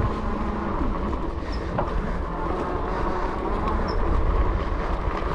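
Fat-tire electric bike ridden over gravel and mud: a steady rumble and rattle of its 4-inch tires and frame on the loose surface, with scattered small clicks.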